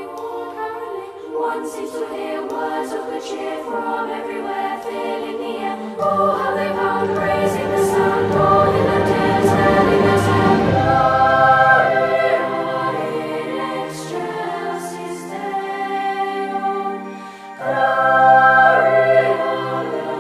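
Background music: a choir singing in sustained harmony. It swells louder in the middle, dips briefly, and comes back in strongly near the end.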